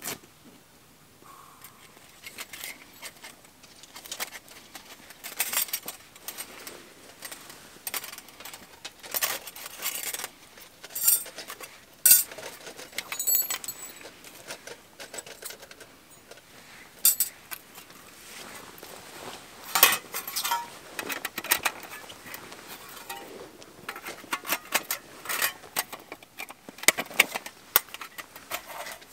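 Knife and metal plates being handled close up: irregular metallic clinks, taps and scrapes, some sharper than others.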